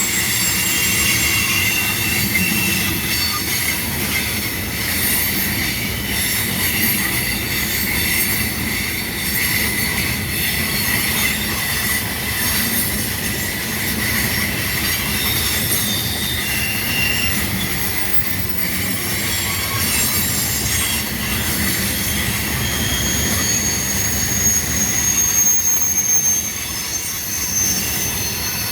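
Loaded coal train's freight cars rolling past, steel wheels squealing against the rail in a thin steady whine, with a higher squeal near the end, over a continuous rumble and the click of wheels over rail joints.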